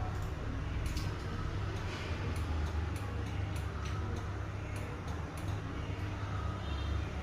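A low steady hum with light, irregular clicks scattered through it.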